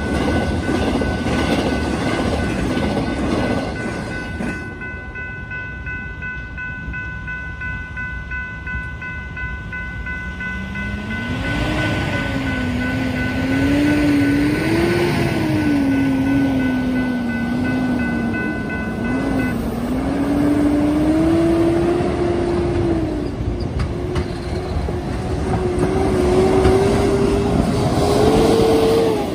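The last cars of a double-stack intermodal freight train passing over the crossing for the first few seconds, then the crossing warning bell ringing steadily while the gates go up, stopping about two-thirds of the way in. From about a third in, diesel trucks pull away across the tracks, their engine pitch rising and falling as they shift through the gears.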